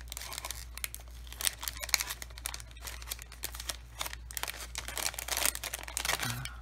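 Clear cellophane bag crinkling and crackling in irregular rustles as hands handle it and work paper flowers out of it.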